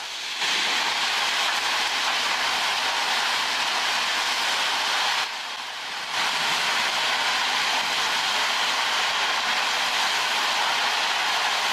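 Railway construction machinery running: a steady, loud rushing noise with no clear rhythm, which drops away briefly about five seconds in.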